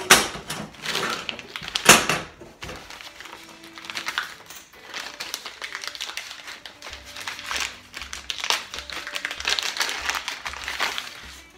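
Plastic egg crate panels clattering twice onto a table, then a plastic packet crinkling and rustling as it is handled.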